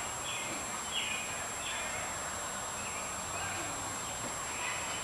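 Birds chirping: short high calls repeated every half second or so, thinning out after the first couple of seconds, over a steady outdoor hiss.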